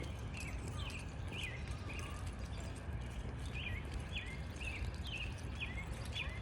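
Wild birds singing: a run of short, sliding chirp notes, one to two a second, over a steady low rumble of outdoor background noise.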